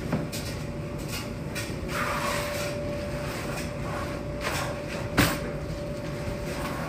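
Tumble dryer running: a steady hum with a constant tone, broken by irregular knocks from the load in the drum, one louder knock about five seconds in.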